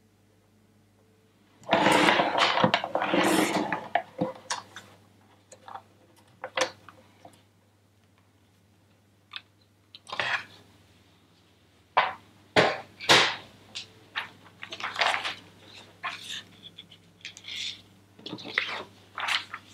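Sliding paper trimmer cutting through thick paper: a rasping cut of about two seconds as the blade head is run along the rail, then the sheet being shifted and repositioned with sharp clicks and shorter scraping cuts and rustles.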